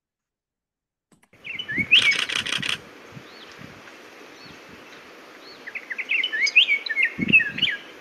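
Scott's oriole singing two phrases of slurred whistled notes, the first about a second and a half in and a longer one from about six seconds in, over a faint steady hiss.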